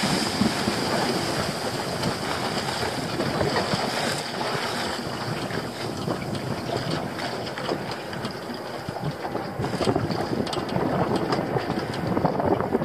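Water rushing and splashing along a small boat's hull, with wind buffeting the microphone.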